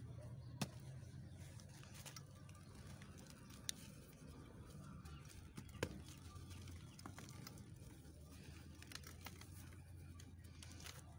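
Lumps of dry white cement crumbling in bare hands: faint gritty crackling and pattering of falling grains, with a few sharp cracks as pieces break.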